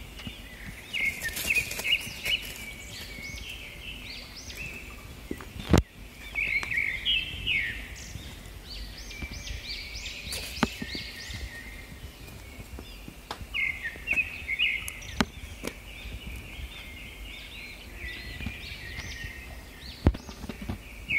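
Small birds chirping in repeated runs of quick notes every few seconds, over steady outdoor background noise. Two sharp clicks, one about six seconds in and one near the end.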